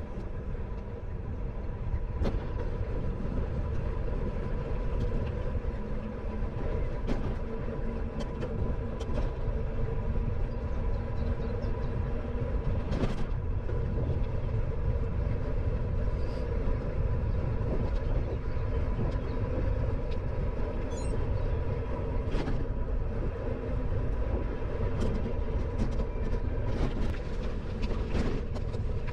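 Steady riding noise from a moving bicycle: low rumble of tyres and wind on the microphone, with scattered rattling clicks and a faint steady hum.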